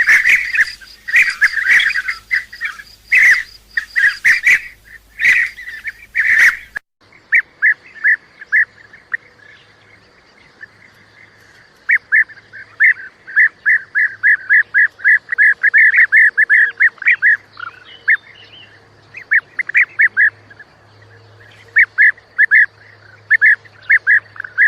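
Bee-eaters giving their short, rolling, liquid calls, repeated over and over, several birds at once at first. About seven seconds in, the sound cuts to a cleaner recording of the same calls in quick runs.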